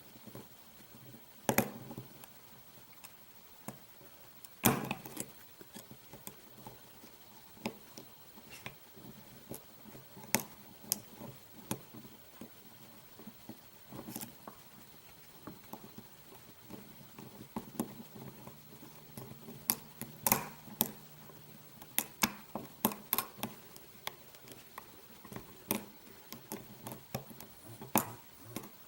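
Irregular light metallic clicks and taps of a lock pick and tension wrench working the pins of a padlock, with a busier run of clicks about twenty seconds in.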